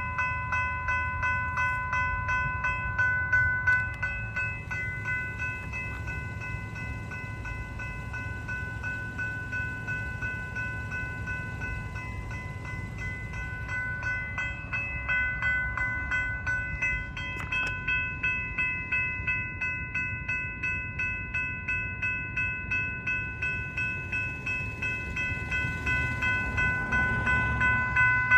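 Railroad crossing warning bells ringing without pause in a fast, even rhythm, several bells at different pitches overlapping, louder near the end. The crossing is activated with no train present: a malfunctioning crossing.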